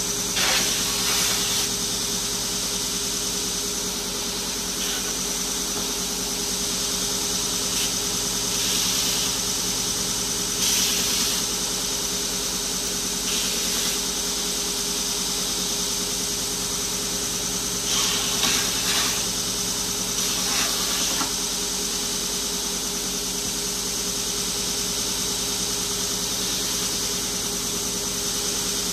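Belt grinder running steadily, with short bursts of grinding hiss several times in its first twenty seconds or so, as the sharp corners of a galvanized steel sheet are pressed to the belt.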